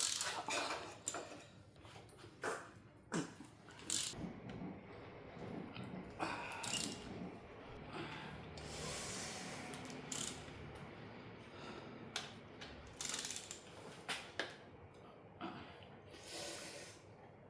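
Hand tools working on a Suzuki F6A engine during teardown: irregular metallic clicks and knocks, with a longer stretch of steady noise from about six to ten seconds in.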